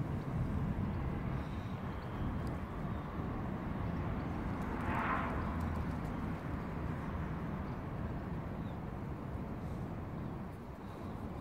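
Steady low outdoor background rumble, with a short swell of hiss about five seconds in.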